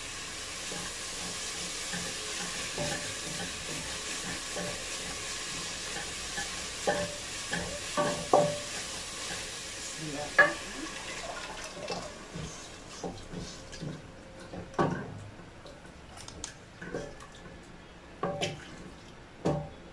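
Chopped onion and garlic sizzling in oil in a stainless steel pot, with a wooden spoon stirring and knocking against the pot. The sizzle dies down about twelve seconds in as the tomato sauce goes into the pot, leaving mostly the spoon's knocks.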